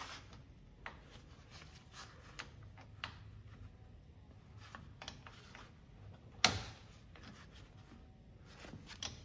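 Light metallic clicks and taps of a wrench working the brake caliper bolts on a UTV's wheel hub, with one sharp clank about six and a half seconds in.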